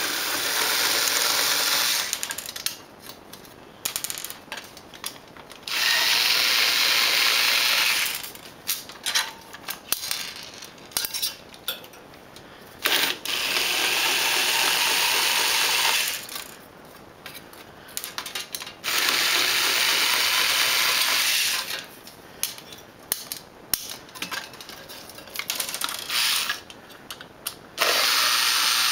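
Homemade electric drill running in runs of two to three seconds, five times, as it backs out screws, with small clicks and clinks of handling between the runs.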